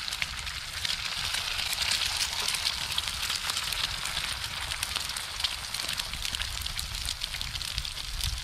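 Eggs frying in rendered pork fat in a thick-walled aluminium pan, a steady sizzle, over a small wood-chip camp stove whose fire crackles with many fine pops. A low rumble runs underneath.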